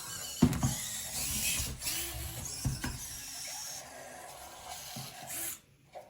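Servo motors of a Robosen Elite Optimus Prime robot toy whirring as it transforms on a voice command, with several sharp clunks as parts move and lock. The whirring stops suddenly near the end.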